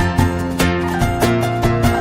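Instrumental music with plucked strings over a steady beat.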